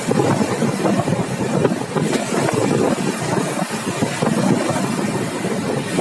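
Running noise of a moving train heard from on board: a steady, unbroken rumble.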